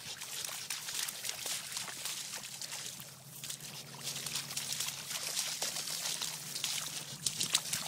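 Shallow floodwater in a grass field splashing and trickling, a busy crackle of small splashes, with a steady low hum underneath.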